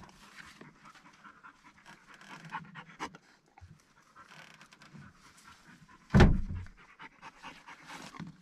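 A dog panting quickly and steadily, with one brief loud bump about six seconds in.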